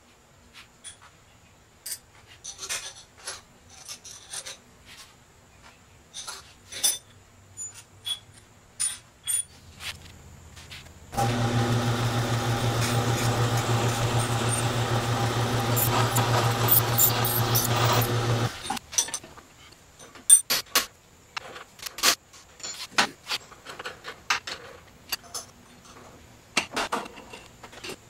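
Clicks and knocks of tools and metal parts being handled at a machine vise. About eleven seconds in, a mill-drill's motor starts with a steady hum and runs for about seven seconds, then stops, and the clicking and knocking resume.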